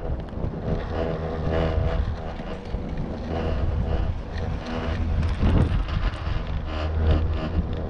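1986 Doppelmayr detachable quad chairlift heard from a moving chair: a steady low rumble from the haul rope and sheaves. It swells as the chair runs through a tower's sheave train partway through.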